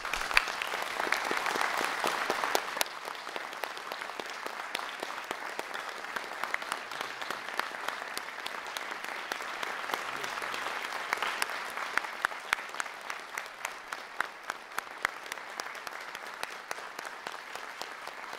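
Audience and band applauding: clapping breaks out suddenly, loudest for the first few seconds, then settles into steady applause with distinct individual claps standing out.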